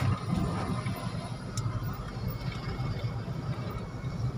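Car engine and tyre noise heard from inside the cabin, a steady low rumble while driving slowly along a narrow country road.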